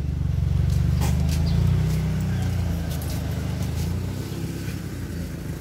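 Car engine idling close by: a low, steady rumble that is loudest in the first couple of seconds and then eases a little.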